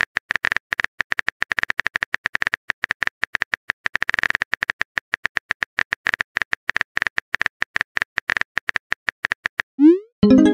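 A texting app's keyboard sound effect: a rapid, uneven run of short, pitched clicks, one per typed letter. Near the end a short rising swoosh plays as the message is sent.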